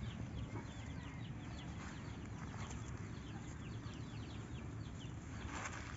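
Birds chirping, many short quick falling chirps, over the rustle and scrape of a hand digging in loose dry soil around cassava roots, with a louder rustle near the end.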